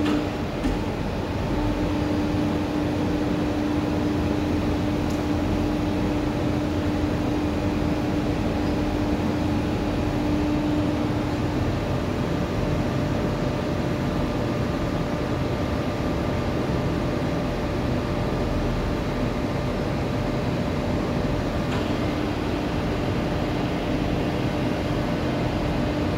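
Elevator-type hydraulic press running with a steady mechanical hum and a whining tone that fades about twelve seconds in and comes back about twenty-two seconds in.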